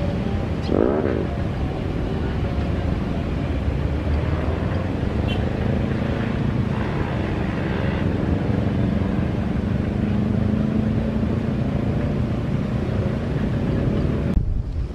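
Road traffic with motorcycles: a steady low rumble of engines, with a motorbike revving as it passes about a second in.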